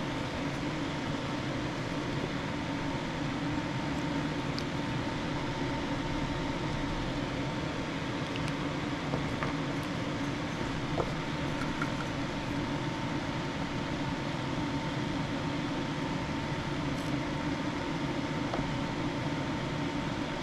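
Steady hum and rushing noise of a fan or air-conditioning type machine, with a faint steady tone over it and a few small clicks.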